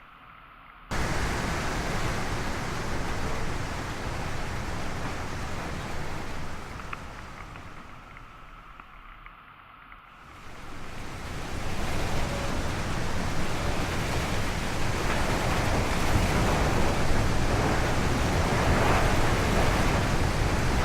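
Rushing wind and road noise of a car driving through a snowstorm. It cuts in abruptly about a second in, dies down for a couple of seconds in the middle, then builds up again and holds steady.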